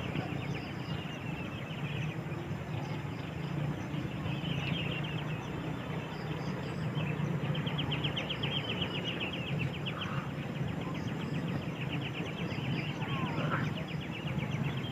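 Tropical forest ambience: birds giving short chirping calls over a steady hum, with a fast, even trill joining about six seconds in and running nearly to the end.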